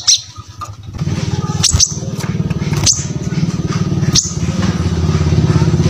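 A small engine's low pulsing hum starts about a second in and runs steadily under everything. Over it, a brown-throated sunbird gives short sharp high chips about once every second or so.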